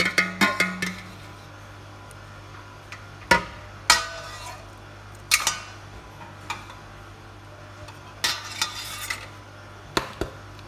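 Stainless steel mixing bowl and metal utensils clattering: a quick run of clicks as the bowl is tapped and scraped against a plastic container at the start, then scattered metallic clinks, some ringing briefly.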